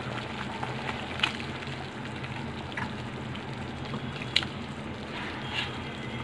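Fish gravy boiling in a kadai, a steady bubbling hiss, with a few short clicks as pieces of fish are slipped in by hand.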